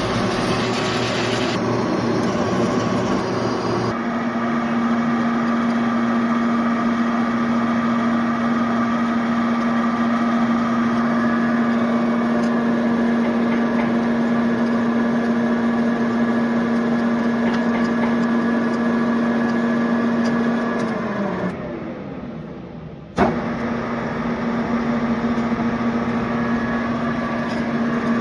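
Lathe running under cut while threading a worm shaft, with a steady machine hum and overtones. About 21 seconds in the hum drops in pitch as the machine slows. A sharp click follows, and then the steady running sound resumes.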